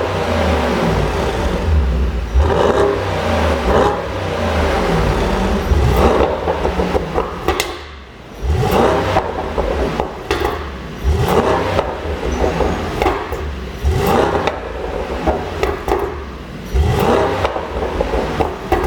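Mercedes-AMG GT63 S's twin-turbo V8 being revved over and over. Each rev rises in pitch and is followed by sharp pops and crackles from the exhaust as the revs fall: a tuned-in overrun pop-and-crackle map.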